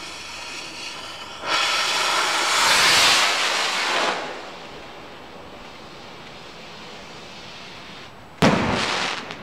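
Stealth Bomber firework rocket climbing with a rushing hiss for about two and a half seconds, then a single loud bang as it bursts, about eight seconds in, fading with a short echo.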